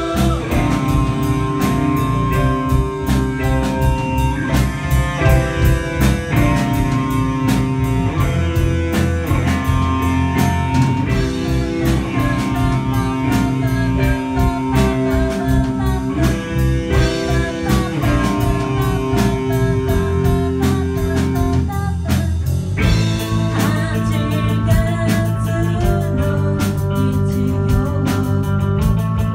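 Rock band playing live: electric guitars, keyboard and drum kit, heard through the PA from among the audience in a small club, with a steady drum beat.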